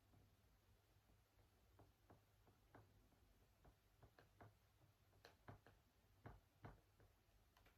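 Near silence with faint, irregular ticks and taps of a writing tool on a writing surface, thickest between about four and seven seconds in, over a low steady hum.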